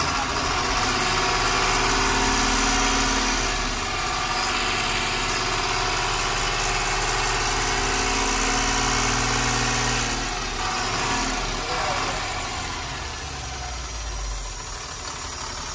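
Truck engine and road noise heard from inside the cab while driving. The engine note changes and drops away about four seconds in and again about ten seconds in, then settles a little quieter.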